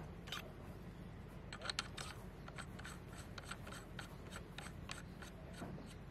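Metal air stripper being screwed onto an airgun's threaded barrel muzzle by hand: a faint, irregular run of small metallic clicks and light scraping, with a pair of sharper clicks a little under two seconds in.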